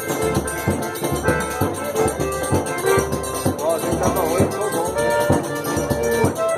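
Forró dance music playing: a melody over a steady drum beat of about two thumps a second, with a shaker rattling along.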